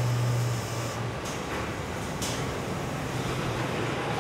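Car assembly plant floor noise: a steady machinery drone with a low hum that fades about half a second in, and two short high clicks about one and two seconds in.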